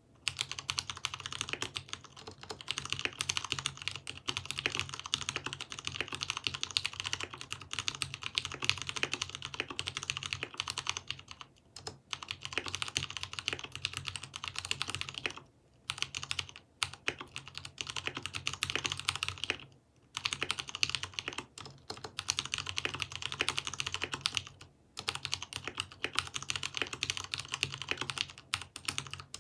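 Continuous typing on a Poker 3 mechanical keyboard with Cherry MX Brown switches, spray-lubricated with Super Lube to damp spring noise. The keystrokes come thick and fast, with a few brief pauses.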